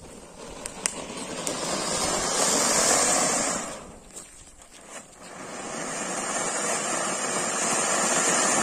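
Double anar (flower-pot fountain firework) spraying sparks with a loud rushing hiss. The hiss comes in two surges: the first builds over about three seconds and dies away near four seconds, and the second swells up about a second later. A few small crackles come near the start.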